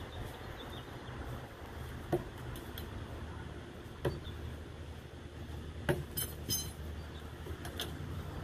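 Steel throwing knives striking a wooden target board: single sharp knocks about two seconds apart, then a brief metallic clinking of the knives against each other a little after six seconds, over a steady low background hum.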